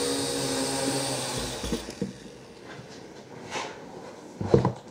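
WLtoys V212 micro quadcopter's motors and propellers whining and buzzing steadily, then cutting out with a low thump about two seconds in as it sets down on the floor. A few short knocks follow near the end.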